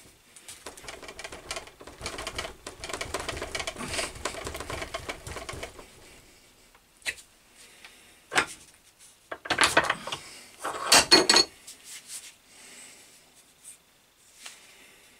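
Bench-vise work on a small axe: several seconds of rapid scraping and rustling, then a few loud metal clanks and knocks as the steel axe head is handled in the vise jaws, one with a short metallic ring.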